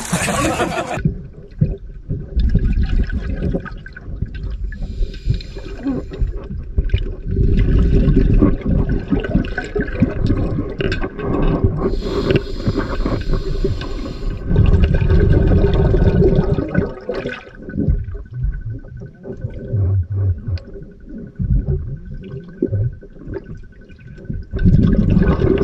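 About a second of splashing above the surface, then sound heard underwater in a swimming pool: a muffled rumbling and gurgling of moving water and bubbles, with scattered small clicks.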